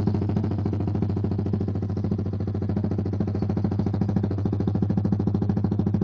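Yamaha MT-15's single-cylinder four-stroke engine idling steadily through an aftermarket slip-on muffler, with an even, rapid exhaust pulse.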